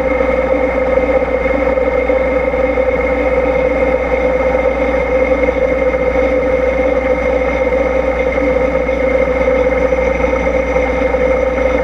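CNC milling machine spindle running with a small end mill cutting a helical flute into a tap blank as the rotary fourth axis turns it: a steady machine hum with a high whine.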